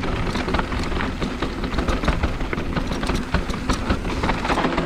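GT Fury downhill mountain bike rolling fast over a dry, rocky dirt trail, its tyres crunching on the dirt and the bike rattling and clattering continuously over the bumps. A steady low rumble of wind buffets the camera microphone.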